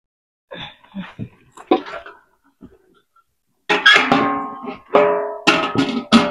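Guitar music: chords strummed or plucked, starting about four seconds in and struck again roughly every half to one second. A few light knocks and clicks come before it.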